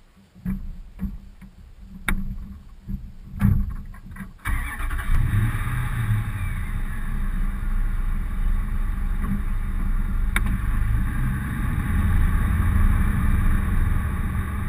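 A few clicks and knocks, then about four seconds in a car engine starts and keeps running with a steady low rumble as the car pulls away.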